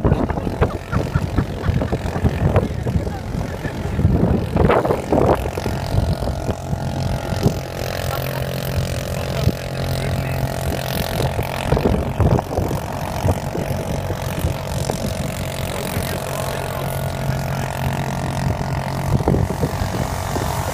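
Snowmobile engine running steadily as it tows an inflatable boat loaded with skiers over the snow. The first few seconds are a rough rumble with a few knocks; about six seconds in, a steady engine note settles in and holds.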